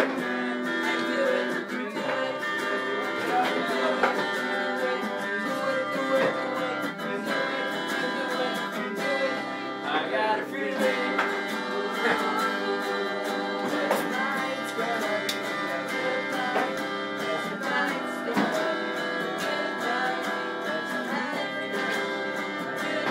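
Electric guitar played through an amplifier, a continuous run of chords and notes.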